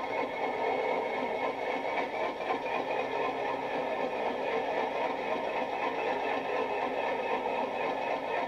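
Bachmann Class 37 model locomotive's Coastal DCC sound decoder playing a Class 37 diesel engine idling, heard through a small EM1 speaker; a steady, even running sound with little deep bass.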